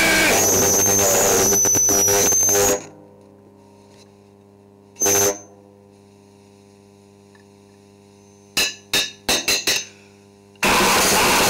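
Noisecore recording: a wall of distorted noise with a high wavering whine cuts off about three seconds in to a steady low hum. One short blast of noise comes about two seconds later, then a quick run of five short blasts, and the full noise resumes near the end.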